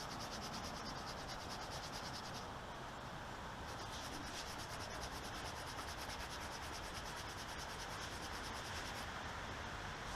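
Scuff pad rubbed back and forth over a rubber bicycle inner tube, roughening the surface around the puncture so the patch glue will bond.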